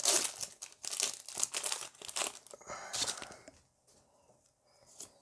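Foil wrapper of a Pokémon card booster pack crinkling and tearing as it is opened and the cards pulled out. The crackling stops about three seconds in, leaving only a few faint ticks.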